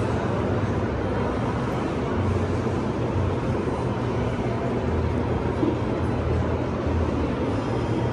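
Steady ambience of a large exhibition hall: a low hum with an even wash of indistinct background noise and faint crowd murmur.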